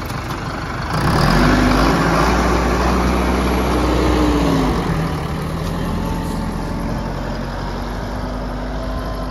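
Sonalika Tiger 65 tractor's common-rail diesel engine revving up about a second in as the tractor moves off pulling a cultivator, then easing slightly near the middle and running steadily under load.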